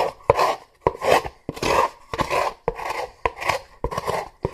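Rhythmic rubbing strokes on cardboard, about two a second, with small clicks between the strokes.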